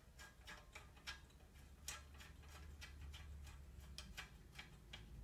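Faint, rapid clicking, about four or five clicks a second and uneven in strength, from tightening the bolt that holds a bicycle kickstand to the frame, over a low steady hum.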